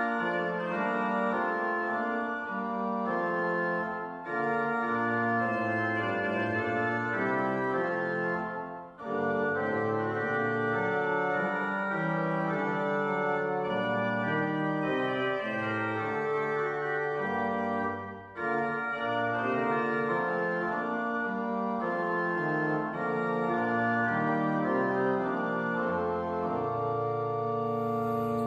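Organ playing a slow passage of sustained chords over a moving bass line, with short breaks between phrases about 4, 9 and 18 seconds in.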